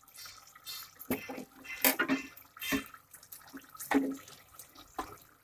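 Thick chicken handi gravy simmering in an aluminium handi pot on the gas flame, with an irregular wet pop or plop about once a second.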